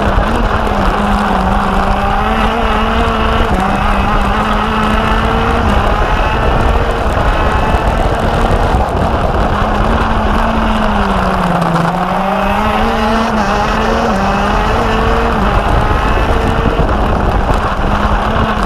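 Racing kart engine running hard on track, heard from on board. Its pitch mostly holds steady with small steps, then dips sharply about twelve seconds in as the revs drop and climbs back up.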